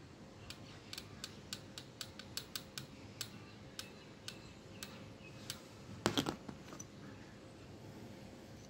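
Light clicks and taps of a steel screwdriver against the speed-sensor magnet and housing on a washing machine motor's shaft end, about four a second for the first few seconds, then a short louder clatter about six seconds in as the plastic speed-sensor housing is handled.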